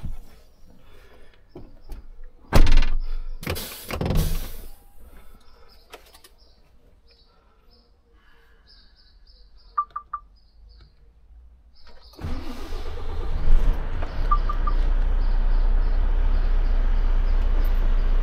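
Knocks and a couple of loud thumps of handling in the truck cab, then a few short electronic beeps from the dashboard. About twelve seconds in, the Volvo FH 500's 13-litre six-cylinder diesel starts and settles into a steady idle.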